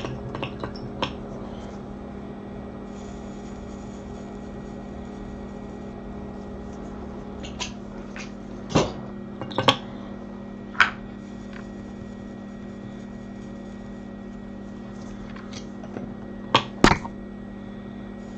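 Steady electrical hum of workbench equipment, with a few sharp taps and clicks of small hand tools on the bench, two in quick succession near the end.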